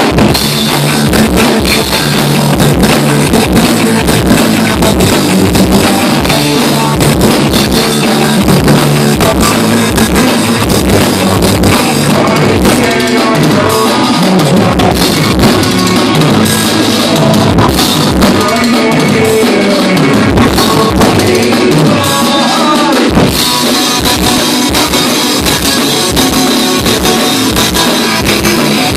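Live rock band playing loud, with drum kit, electric guitar and bass. The cymbals ease off through the middle and come back in about two-thirds of the way through.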